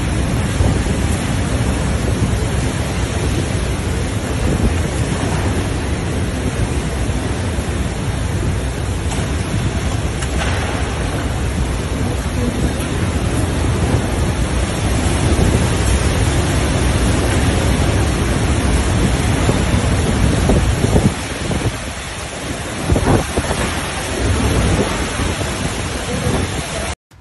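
Category 5 hurricane winds howling past a hotel building, a dense, unbroken roar that surges in strong gusts and buffets the phone's microphone. The wind eases briefly about three-quarters of the way through, then picks up again.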